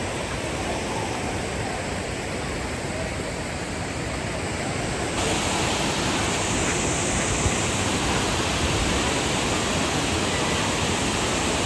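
Waterfall rushing steadily, heard from an overlook; the rush grows louder and brighter about five seconds in.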